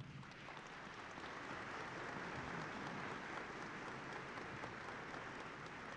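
Audience applauding, building over the first couple of seconds and then slowly fading.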